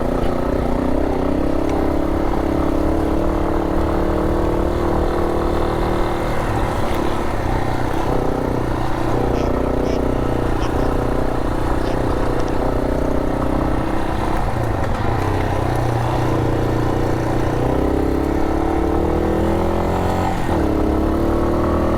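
Single-cylinder trail motorcycle engine, a Yamaha Serow 250, running while riding a gravel forest road. The engine note rises and falls with the throttle, dips briefly a few times, and climbs near the end.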